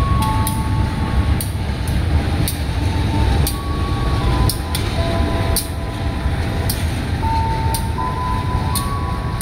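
A train running past with a steady low rumble and sharp ticks about every half second to second. Over it plays a simple electronic tune of held tones that step between a few pitches.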